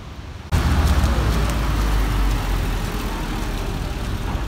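City street traffic noise that cuts in abruptly about half a second in: a motor vehicle's low rumble, heaviest for the first couple of seconds, over a steady hiss of street noise.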